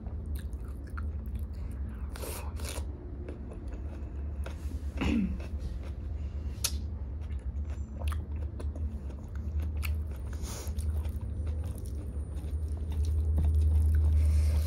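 Close-miked chewing of a hand-fed mouthful of rice and masoor dal, with a steady low mouth rumble and a few sharp wet mouth clicks and lip smacks.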